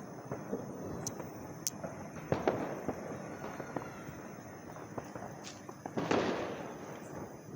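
Diwali firecrackers going off: many scattered sharp pops and bangs over a continuous background of crackling, with a louder burst and a short crackling trail about six seconds in.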